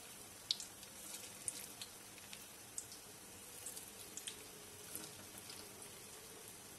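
Chicken pakora pieces deep-frying in foaming oil in a black iron wok: a faint sizzle with scattered small crackling pops. The heavy foam comes from the oil having been kept on a low flame.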